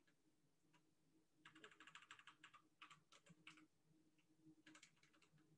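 Faint computer keyboard typing: short runs of quick key presses starting about a second and a half in, with another brief run near the end.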